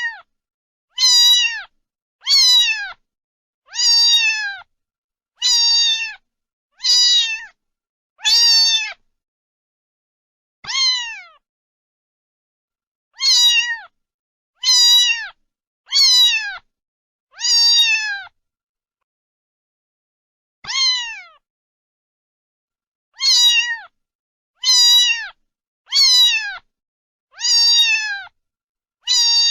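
A cat meowing over and over: about seventeen short meows, each dropping in pitch at its end, separated by gaps of dead silence.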